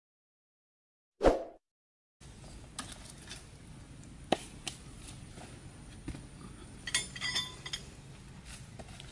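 A brief burst of sound about a second in, then a faint steady background hiss with scattered sharp clicks and knocks of dry sticks being handled and laid on a small wood fire, with a quick cluster of ringing clicks near the end.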